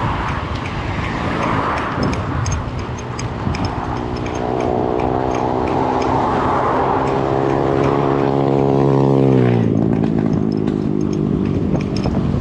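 A motor vehicle's engine passing close by over road noise, its steady hum dropping in pitch a little after nine seconds in as it goes past.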